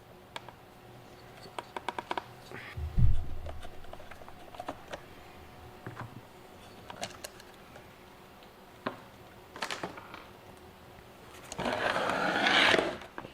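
Hand tools and fingers working on a jump box's battery terminals to disconnect the leads: scattered small clicks and taps, a quick run of clicks about two seconds in, a dull thump about three seconds in, and a rough scraping noise near the end.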